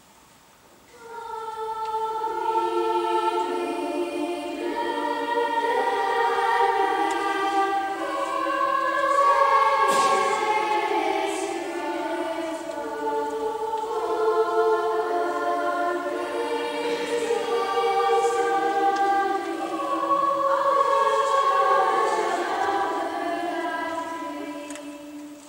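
Children's girls' choir singing unaccompanied, entering about a second in with several voices holding notes together, and fading away near the end.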